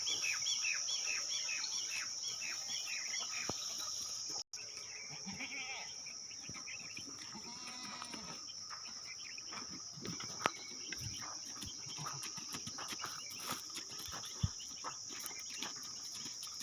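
Goats bleating a few times over a steady high drone of crickets, with birds chirping rapidly in the first few seconds. Scattered sharp clicks come later.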